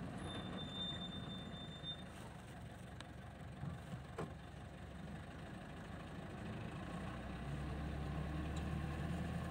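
Engine of a vehicle heard from on board while it drives along a road, running steadily and growing louder about three-quarters of the way through.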